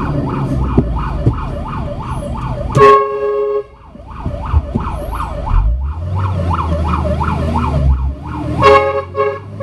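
Fire truck siren on a fast yelp, heard from inside the cab over the truck's engine. About three seconds in, a long horn blast cuts in and the siren stops briefly, then resumes; near the end come three short horn toots.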